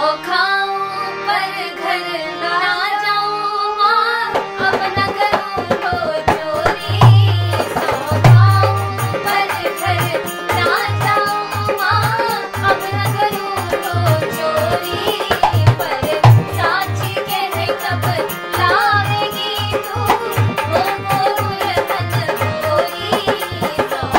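Krishna bhajan sung by a young woman and a boy to harmonium accompaniment. About four seconds in, a dholak comes in and keeps a steady beat under the singing.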